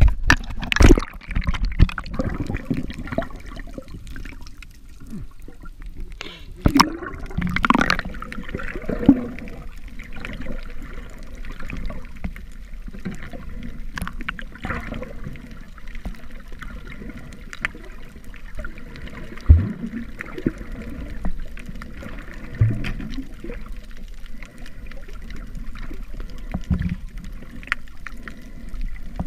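Water gurgling and sloshing around a camera held at and under the sea surface while snorkeling. The wash is irregular and muffled, with a few louder sloshes.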